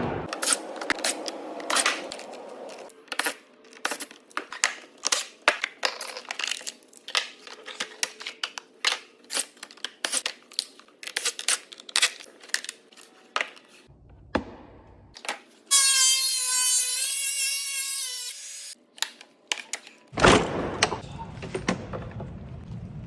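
A long run of sharp clicks and clatters of small hard objects being handled. About two-thirds of the way through comes a steady whining tone lasting a couple of seconds, then a short stretch of noise.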